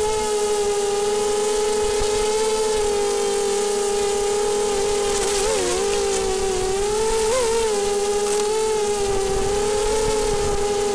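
Small FPV multirotor drone's motors and propellers whining steadily at one high pitch, dipping and rising briefly about halfway through as the throttle changes.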